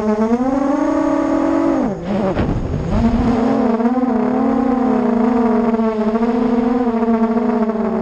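Brushless motors and propellers of a ZMR250-clone FPV racing quadcopter (RCX2205 2300KV motors on 4S), picked up by the onboard camera, whining steadily. About two seconds in the pitch drops sharply with a low rumble as the throttle comes off, then climbs back and holds steady.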